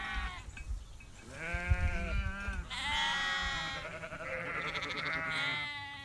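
A flock of hair sheep bleating, several calls in turn, some overlapping.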